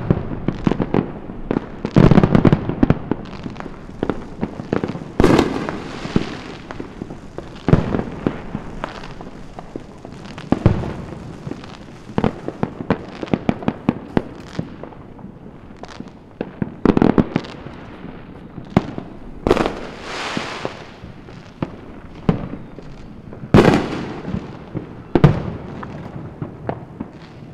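Fireworks going off at many points near and far: irregular bangs, a loud one every few seconds among fainter pops, each trailing off in a rolling echo.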